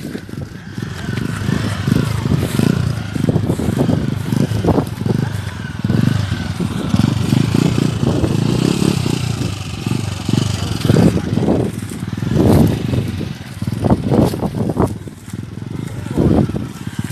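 Small motorcycle engine running as the bike rides slowly over rough ground through scrub, with a faint rising whine early on. Several sharp knocks and rattles come through in the second half.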